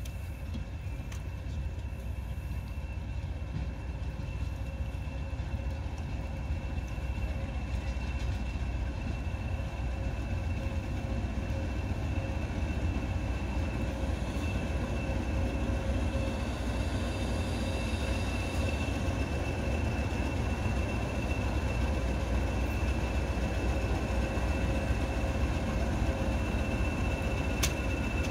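Heritage diesel locomotive running, a steady low rumble with a steady high whine, slowly growing louder.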